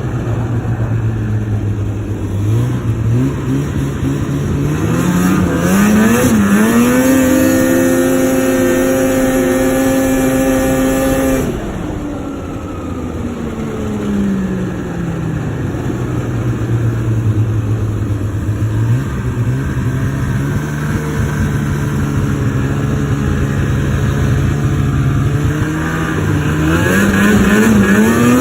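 Snowmobile's two-stroke engine under way. It starts at a low drone, revs up a few seconds in to a high steady pitch, and holds there for several seconds. It then winds back down to the low drone and rises again near the end.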